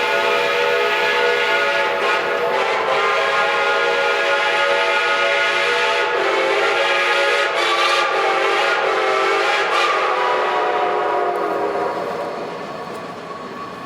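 Steam whistles of geared logging locomotives blowing one long, loud chord of several notes together. The blend shifts partway through, and the whistles fade near the end.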